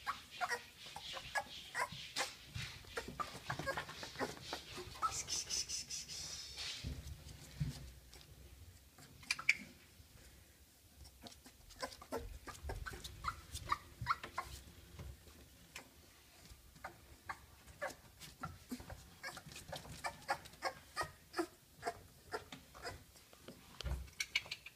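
Month-old miniature bull terrier puppies giving many short, faint squeaks and whimpers, mixed with light scratching and rustling of small claws on bedding and paper.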